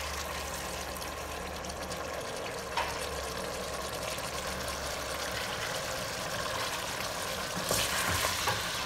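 Beef cubes sizzling in rendered beef suet and meat juices in a thick steel pot, a steady frying sound, with a little boiled water just poured in. Near the end a wooden spoon starts stirring the meat.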